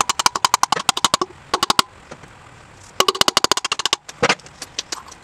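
Ratchet wrench clicking rapidly in three short runs of strokes at the wheel hub, then a single knock about four seconds in and a few loose ticks.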